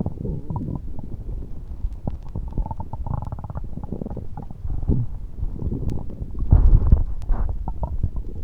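Stomach gurgling and rumbling, a run of bubbly, irregular gurgles with a louder surge about six and a half seconds in.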